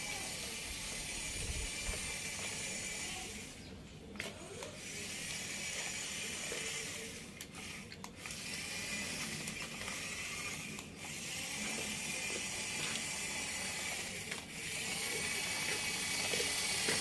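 Remote-controlled toy excavator's small electric motors and plastic gearbox whirring as it moves, stopping briefly a few times between movements.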